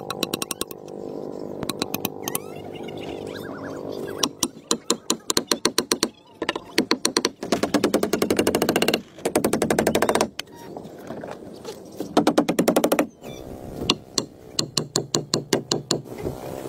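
Hammer driving nails into wooden strips with quick runs of light blows, several strikes a second, in bursts of a second or two with short pauses between.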